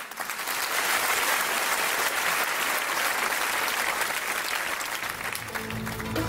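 Audience applauding, an even clatter of many hands that eases slightly toward the end. Music begins under it about five and a half seconds in.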